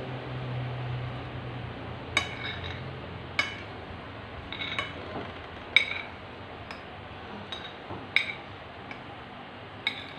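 Metal spoons clinking and scraping against plates while eating: sharp clinks at irregular intervals, roughly one a second, each with a brief ring. A low hum runs under the first two seconds.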